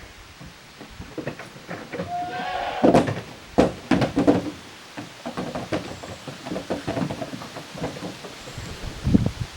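Goat kids at play: one brief bleat a little over two seconds in, followed by a run of knocks and thumps as they jump and bump about.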